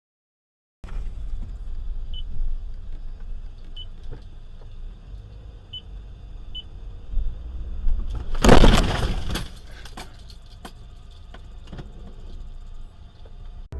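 Car driving with a steady low road and engine rumble, then a loud crash impact about eight and a half seconds in, followed by a few sharp clinks and knocks.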